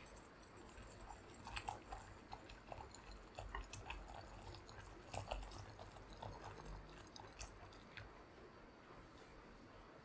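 Hot water poured in a thin stream from a kettle into a glass bowl: faint, irregular splashing and bubbling that stops about eight seconds in.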